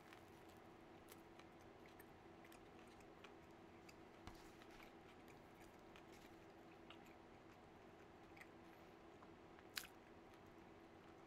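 Faint chewing of a mouthful of burger, with small wet mouth clicks, over a steady low hum. One sharper click near the end.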